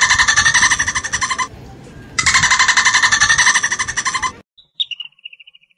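Bottlenose dolphin calling in air: two long, rapid pulsed squawks of about two seconds each, then a shorter, higher pulsed whistle near the end.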